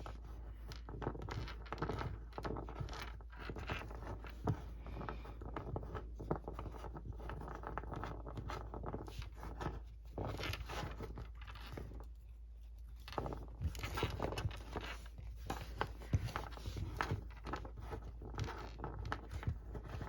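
Eraser rubbing back and forth on paper in quick, scratchy strokes.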